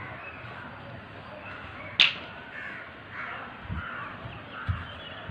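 Crows cawing again and again, with one sharp click about two seconds in and a few soft low thuds in the second half.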